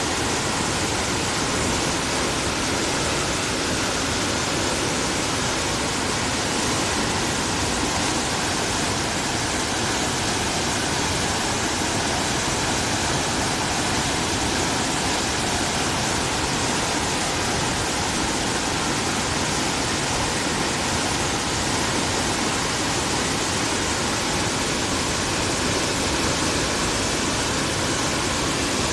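A river in flood after a typhoon, its high, fast water rushing steadily and evenly.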